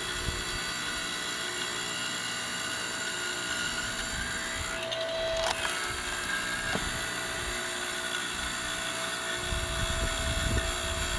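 Automatic firewood processor running steadily with a constant mechanical whine as it cuts and splits logs. A sharp knock about seven seconds in, and a heavier low rumble near the end.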